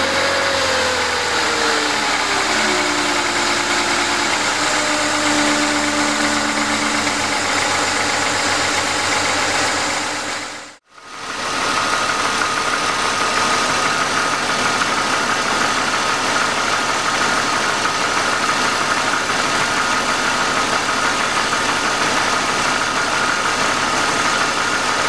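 BMW M52B20 2.0-litre inline-six idling with its belts and cooling fan running. Under the idle are the Vanos rattle and a diesel-like knocking that the owner cannot explain and places near the exhaust side of the engine. About eleven seconds in the sound fades out and back in, and after that a steady high whine sits over the idle.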